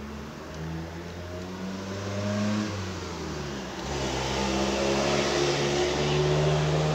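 A motor vehicle's engine running and revving. Its pitch rises and falls, and it grows louder from about four seconds in.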